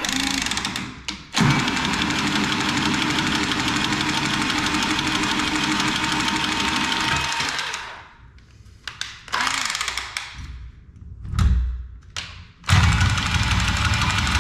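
Cordless power tool motor running on copper pipe: a short burst, then a long steady run, a few brief bursts, and another steady run near the end.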